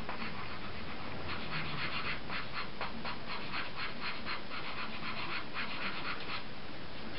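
White pastel stick rubbed back and forth on drawing paper to blend highlights: a dry scratchy rasp in quick regular strokes, a few a second, that stops shortly before the end.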